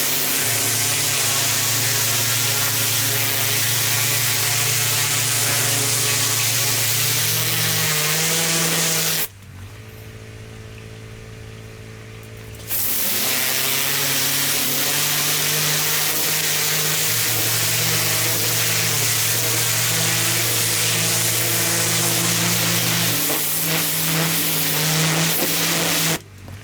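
Pressure washer spraying: a steady, loud hiss over the hum of its running engine and pump. The spray cuts off for about three seconds near the middle and again just before the end, leaving the lower hum.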